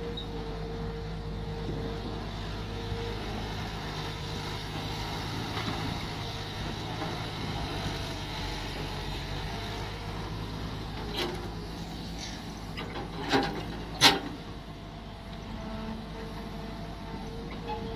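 Mini excavator engine running steadily while digging, with three sharp knocks late on, the loudest about fourteen seconds in.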